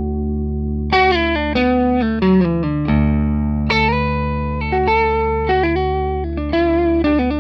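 Electric guitar played through a Maxz 2OD dual overdrive pedal set to light gain. A ringing chord gives way to a new strum about a second in, then a short descending run and more chords and single-note phrases over a low sustained note, with a mild, crunchy clipping.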